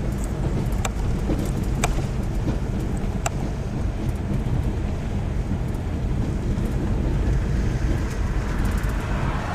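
Steady low rumble of a moving car with wind noise on the microphone, broken by a few sharp clicks in the first few seconds.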